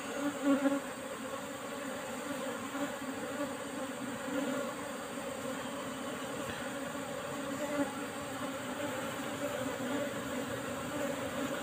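A mass of Asian honey bees (Apis cerana) buzzing with a steady hum: a wild colony disturbed as its combs are cut out of a rock crevice.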